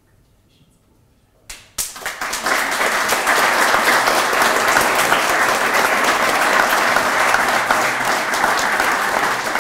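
An audience applauding: after about a second and a half of quiet, many people start clapping together, and the applause stays steady and loud.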